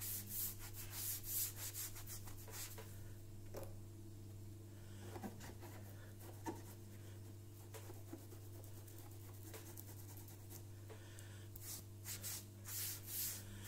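Wet scouring sponge scrubbing back and forth in short strokes against a turntable's plinth, rubbing off softened sticker residue. The scrubbing eases off in the middle to a few small scrapes, then starts again near the end.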